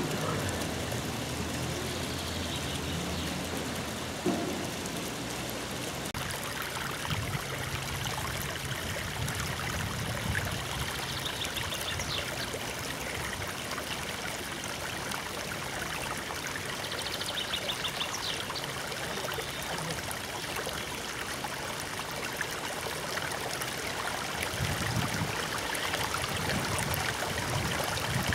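Running water: a steady, even rush, with a few faint high chirps over it.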